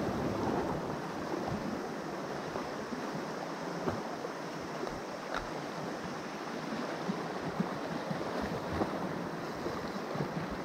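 Sea washing and splashing against the rocks below, with wind buffeting the microphone. A few faint clicks stand out briefly.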